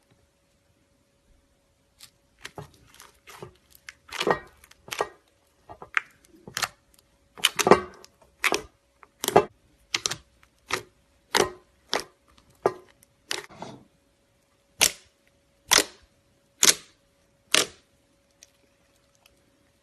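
A series of sharp clicks or snaps starting about two seconds in, irregular at first and then roughly one a second, stopping near the end, over a faint steady hum.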